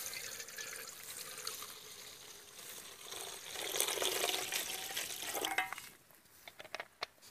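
Water poured from a plastic bottle into a hot aluminium pan over a wood fire, splashing and hissing on the hot metal, loudest near the middle. The pour stops about six seconds in, leaving a few faint ticks.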